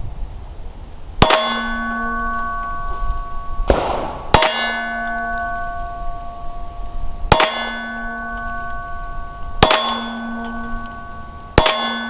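Five 9mm pistol shots from a Glock 19, spaced two to three seconds apart, each answered by a steel target ringing out with a clear metallic tone that fades over a second or two.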